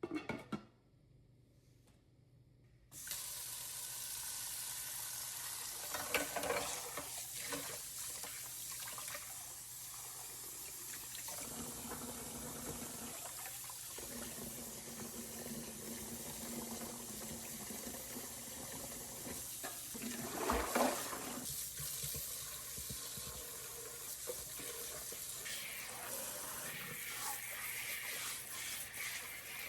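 Water running steadily, which starts suddenly about three seconds in, with a few knocks and clatters over it.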